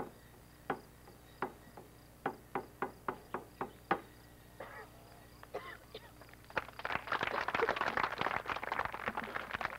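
Sharp single beats keeping time, at first about one a second, then quickening before they stop about four seconds in. About two seconds later the seated audience breaks into clapping.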